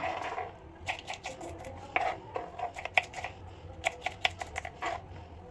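Kitchen knife chopping okra on a wooden cutting board: an irregular run of sharp taps as the blade goes through the pods and strikes the board, some in quick clusters.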